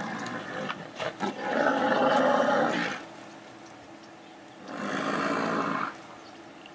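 Two lion roars. The first, about a second and a half long, is the louder; the second, about a second long, follows a couple of seconds later.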